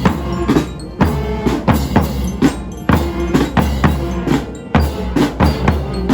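Music with a drum kit playing a steady beat over a bass line and pitched instruments.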